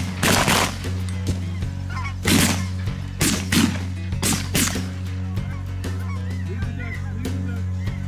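Geese honking over a string of about five or six loud shotgun blasts, spaced unevenly through the first five seconds, with background music that has a steady bass running underneath.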